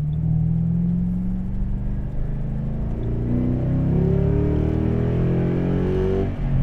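Car engine running, then rising in pitch as it accelerates from about halfway through, with a brief drop near the end like a gear change.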